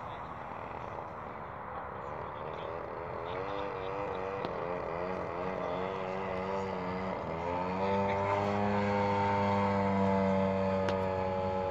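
Radio-controlled aerobatic model aeroplane's motor and propeller, its pitch wavering up and down with throttle changes during manoeuvres, then holding a steady tone that grows louder from about eight seconds in as the plane passes low.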